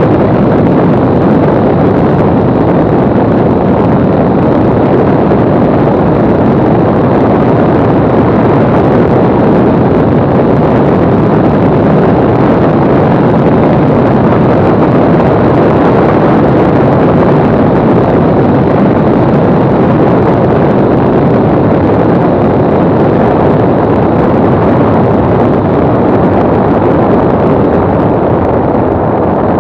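Mooney M20C light aircraft's engine and propeller with rushing airflow, a loud steady noise throughout the final approach, easing slightly near the end as the plane touches down and rolls along the runway.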